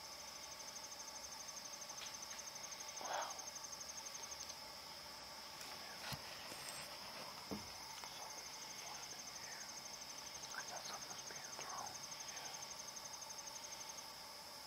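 Crickets chirring steadily at night in a high, even chorus, with a pulsing trill over the first few seconds and again from about eight seconds on. A few faint sudden sounds break through: a brief louder noise about three seconds in, a sharp crack about six seconds in, and a low knock a second and a half later.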